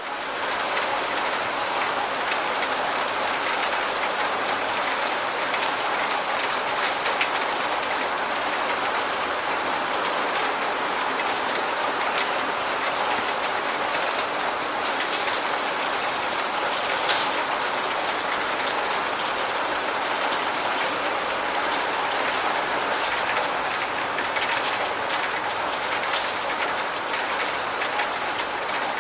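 Steady rain falling: an even hiss with many small drop ticks, holding at one level throughout.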